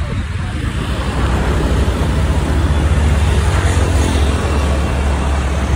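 Steady wind rush and road noise from riding on the back of a motorcycle at highway speed, with a low, even rumble underneath.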